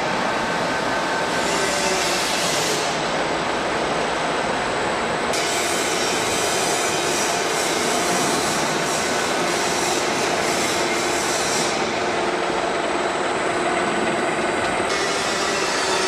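Cable tray roll forming machine running, steel strip feeding through its forming roller stations: a steady, dense metallic running noise with a high hiss that brightens about five seconds in and eases near twelve seconds.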